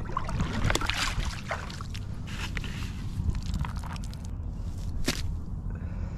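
Water sloshing around a plastic bucket as it is pulled through shallow water, then a cast net tipped out of the bucket onto wet sand, rustling, with a sharp click about five seconds in.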